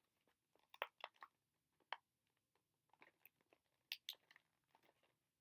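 Faint, scattered clicks and crinkles of toy packaging being handled, a few small sharp taps at a time.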